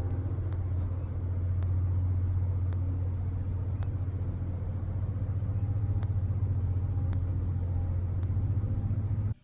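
Steady low rumble of a car on the move, with a few faint ticks; it cuts off suddenly near the end.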